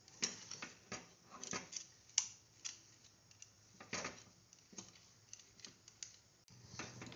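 Metal spatula scraping and knocking against a metal kadhai while stirring a thick, pasty peanut burfi mixture as it cooks, in irregular strokes about once or twice a second.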